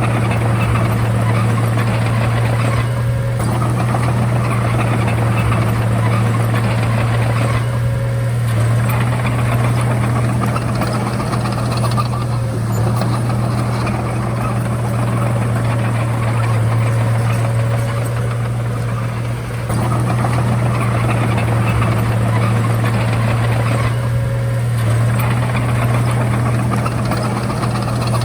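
Komatsu D31A bulldozer's diesel engine running steadily with a deep hum, its higher noise easing off briefly every few seconds.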